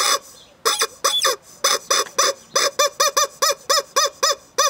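Rubber chicken squeeze toy squawking over and over, about four short squawks a second, each rising and then falling in pitch.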